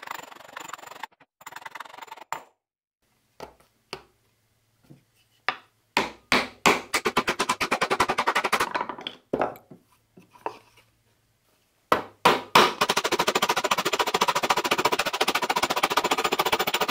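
Wooden mallet knocking on a plywood plate and a bearing: a few separate knocks, then two long runs of rapid taps, about six seconds in and again from about twelve seconds.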